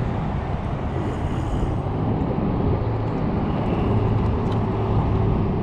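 Wind buffeting the camera's microphone over a steady low rumble.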